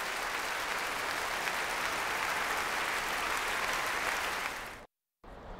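Large crowd applauding steadily, fading out and cutting off about five seconds in.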